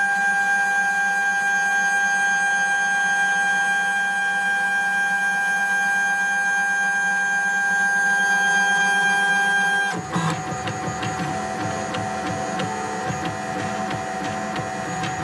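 Lulzbot Mini 3D printer running its start routine: a steady high-pitched whine for about ten seconds, then a sudden change to a rougher, busier mechanical sound with rapid small clicks as the printer moves.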